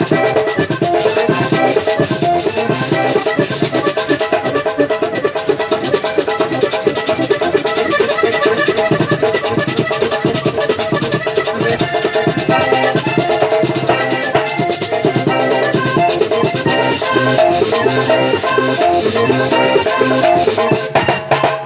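Vallenato puya played on button accordion with caja drum and guacharaca scraper: a fast, continuous run of accordion notes over a driving percussion rhythm, breaking off right at the end.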